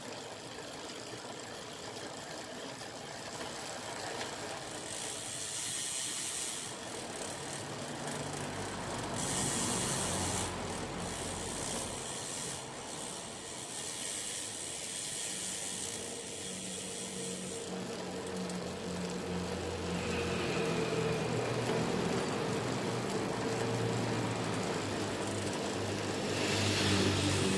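Road bike drivetrain turned by hand: the chain runs over a newly fitted oval chainring and the rear cassette with a whirr that speeds up and slows, and the freehub pawls ratchet.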